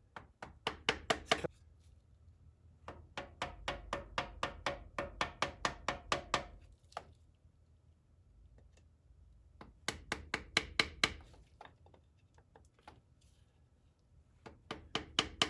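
Quick runs of sharp taps, about four or five a second with short pauses between, on an oak stick driving a new differential side seal into the front differential housing of a Toyota Land Cruiser 100 series.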